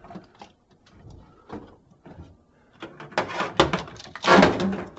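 Sheet-metal duct pipe being worked loose and pulled off the humidifier: a few light knocks, then about two seconds of louder scraping and rattling.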